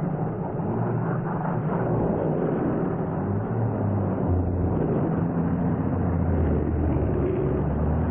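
RC vehicle running through shallow water: a steady motor drone whose low pitch shifts a few times, over a continuous churning hiss of water spray.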